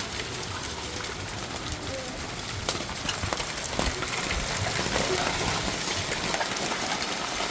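Hailstorm: a steady rush of falling hail and rain, with many scattered sharp clicks of hailstones striking hard surfaces.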